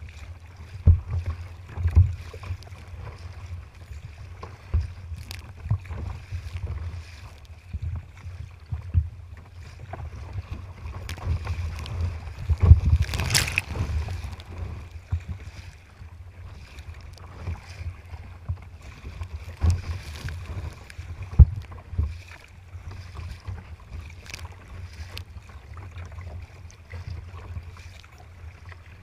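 Choppy seawater slapping and splashing against a sea kayak's bow, with frequent sudden slaps over a steady low rumble. About thirteen seconds in, a wave breaks over the deck, the loudest splash.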